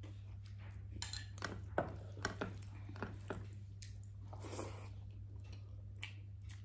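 Eating at a plate: a few light clinks and scrapes of dish and utensils, mostly in the first half, over a steady low hum.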